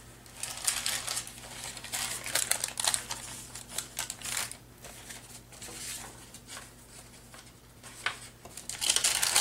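Sheets of paper rustling and sliding as they are handled and shuffled, a run of short crisp rustles that gets busier near the end.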